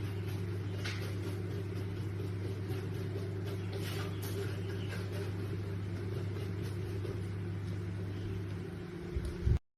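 Steady low hum with a few faint clicks, cutting off suddenly near the end.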